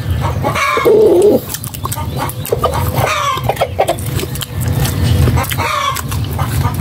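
Chickens clucking in short calls, loudest about a second in and again near three and six seconds, over close-up smacking and chewing of people eating with their hands.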